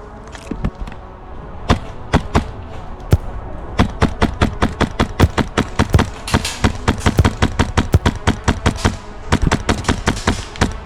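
Wolverine MTW HPA airsoft rifle firing a string of quick semi-automatic shots, a few spaced ones at first, then about four a second, with wind rumbling on the microphone.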